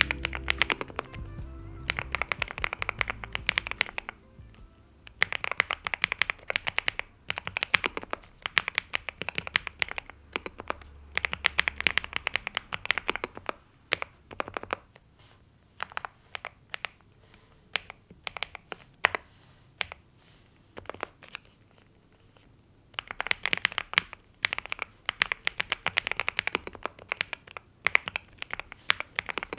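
Typing on a NuPhy Gem80 mechanical keyboard with linear Mint switches and double-shot PBT mSA keycaps. Rapid keystrokes come in bursts of a few seconds, with short pauses between them.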